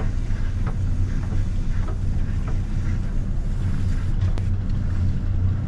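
Boat's twin outboard motors running steadily at low speed, a continuous low hum, with wind buffeting the microphone.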